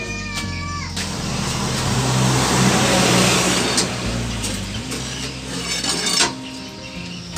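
A motor vehicle engine running and revving, a loud rushing noise that swells about two seconds in and dies away near the end, with two sharp knocks.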